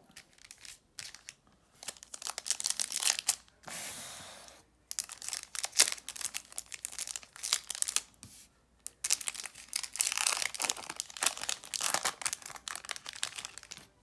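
A foil-lined Topps Garbage Pail Kids trading-card pack being torn open by hand, its wrapper crackling and crinkling. There is one smoother, continuous stretch of tearing lasting about a second around four seconds in.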